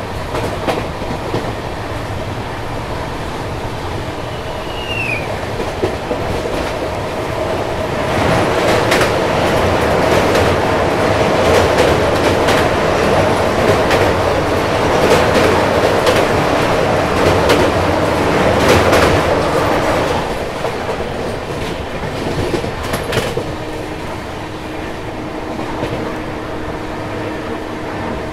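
Passenger express train heard from on board while running at speed: steady wheel-and-rail running noise with the clickety-clack of wheels over rail joints. It grows louder about eight seconds in and eases back about twelve seconds later.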